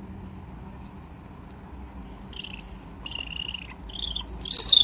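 Golden eagle calling: a few short, high-pitched calls, then a louder, wavering call near the end.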